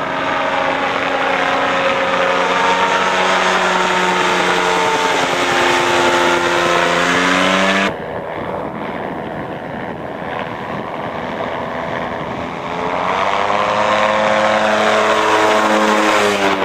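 Gyroplane engine and propeller droning as it flies past, the pitch shifting as it goes by. After a cut about eight seconds in the drone is quieter, then grows louder with its pitch rising near the end before cutting off.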